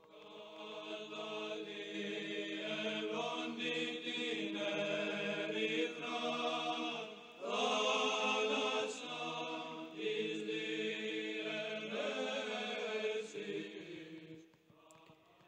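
Chanting voices, likely a choir, holding slow, sustained notes that change every second or two, fading out near the end.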